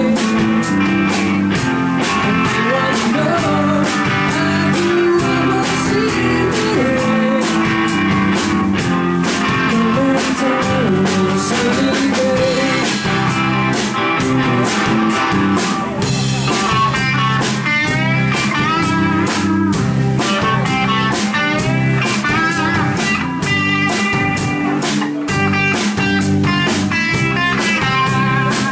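A band playing a rock song led by guitar, with no clear singing. About halfway through, a lead guitar takes over with bent, wavering notes, as in a solo.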